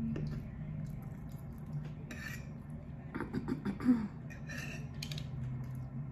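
Eating sounds: chewing and mouth noises, with a metal fork clinking and scraping on a plate, loudest just before four seconds in. A steady low hum runs underneath.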